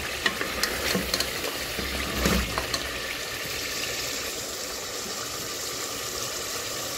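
Steady rushing of running water, with a few sharp clinks in the first three seconds.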